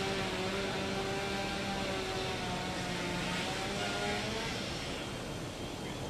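An engine running at a steady pitch, dropping out briefly about two and three and a half seconds in, over the continuous rushing noise of a large house fire burning.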